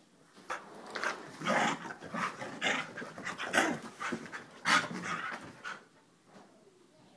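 Two dogs play-fighting: a rapid, irregular run of panting breaths and growls lasting about five seconds.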